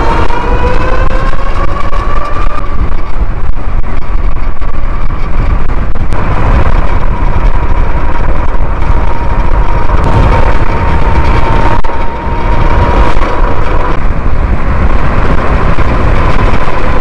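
Heavy wind rumble on the microphone from riding at speed, with the steady whine of an e-bike's stock Tuttio motor driven by a Far Driver controller. The whine rises in pitch over the first couple of seconds as the bike speeds up, then holds level.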